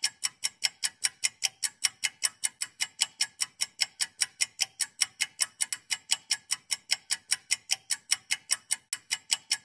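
Fast, perfectly even ticking like a clock or timer, about four or five sharp, bright ticks a second.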